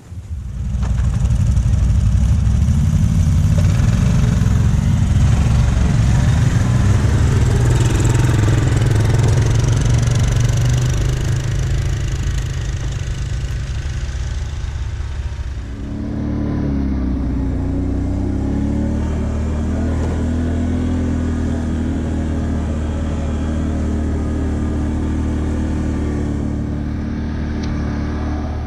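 Vehicle engines running and revving as riders move off; about halfway through the sound changes suddenly to a steadier, slightly quieter engine note.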